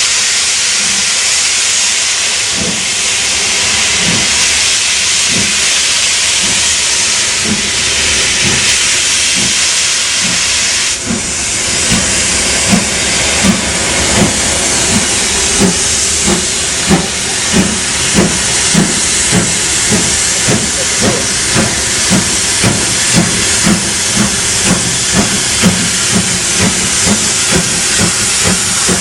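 Steam locomotive letting off steam with a loud, steady hiss. About twelve seconds in, a steady low beat joins it, about three beats every two seconds.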